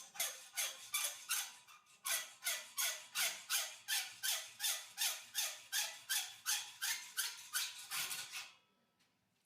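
Hacksaw cutting a V notch in steel cable tray, in steady back-and-forth strokes about three a second, with a brief pause about two seconds in; the sawing stops near the end.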